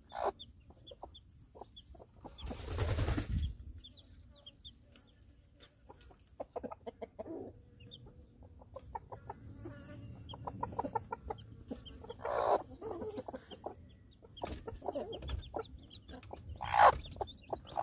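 Hens clucking in a run of short pulses, with louder growling warning calls about three seconds in and again near the end, and faint short peeps from young chicks.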